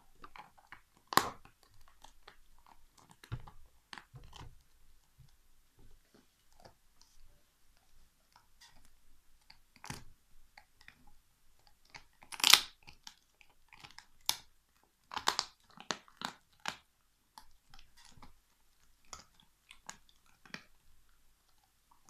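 Alaskan Malamute gnawing a big turkey bone: irregular cracks and crunches of teeth on bone, spaced by quieter gnawing. A loud crack comes about a second in, the loudest about halfway through, and a quick run of crunches follows a few seconds later.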